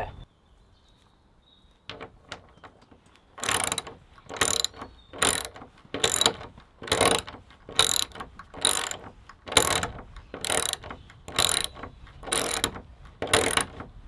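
Hand socket ratchet driving a hex-head screw into a wooden cladding board, clicking in a steady rhythm of about one stroke a second that starts a few seconds in.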